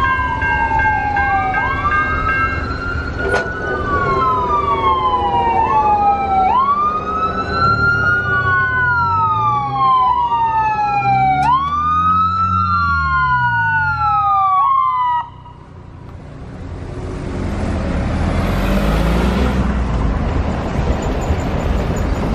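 Ambulance siren on a wail cycle: each sweep climbs quickly and falls slowly, about every two and a half seconds. The siren cuts off abruptly about two-thirds of the way through. The ambulance's engine and tyres then grow louder as it comes close.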